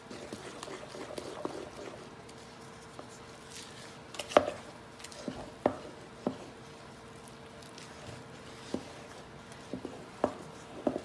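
Wooden spoon stirring thin cake batter in a ceramic mixing bowl: soft wet squishing with irregular knocks of the spoon against the side of the bowl, the loudest about four seconds in.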